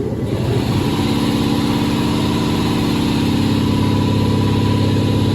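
Diesel engine of a VW Caravelle van coming up over the first second and then running at a steady idle.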